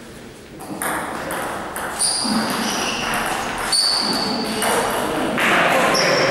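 A table tennis rally: a celluloid/plastic ball is struck by the rubber paddles and bounces on the table. Each contact is a sharp click with a short high ping, coming about once a second.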